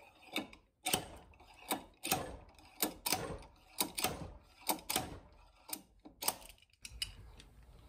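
Screwdriver turned by hand, clicking in short strokes about twice a second as it drives a screw into the old wooden handle stub stuck in a hatchet's eye, to work the stub out.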